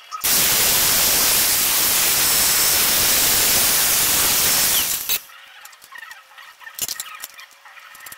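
Angle grinder in a cutoff stand, its abrasive disc cutting through aluminium extrusion with a loud, harsh hiss for about five seconds that stops abruptly. Afterwards come light clicks as the cut aluminium pieces are handled.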